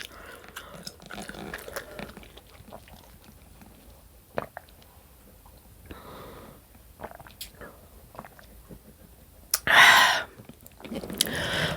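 Quiet close-up chewing and mouth sounds of someone eating, with small clicks. Near the end comes one short, loud, breathy burst.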